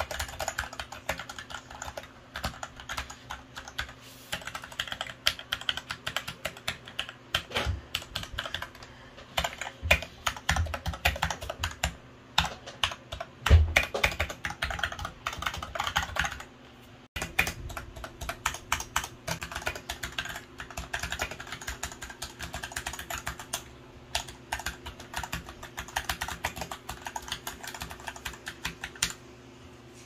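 Fast typing on a Royal Kludge RK100 mechanical keyboard fitted with new white keycaps: a dense, rapid run of keystroke clicks, as a sound test of the new keycaps. One keystroke a little before halfway is louder, and the typing breaks off briefly just past halfway.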